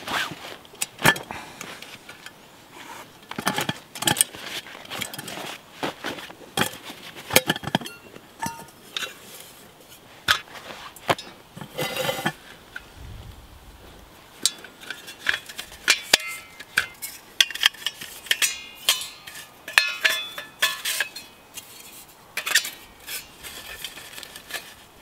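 Metal camp cookware being handled and set down: a stainless steel lidded pot and the nesting steel sections of a Lixada wood gas stove clinking and rattling against each other, in many short knocks, some with a brief metallic ring. Canvas bag rustling between the clinks.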